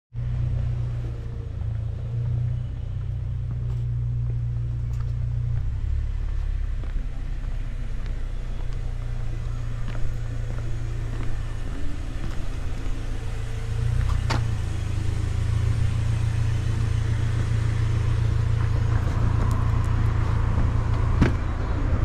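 Steady low rumble of a car driving, with a few faint clicks.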